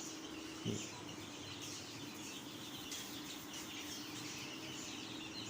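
A flock of young chicks peeping continuously, many short high chirps overlapping, over a faint steady hum. A brief soft knock comes under a second in.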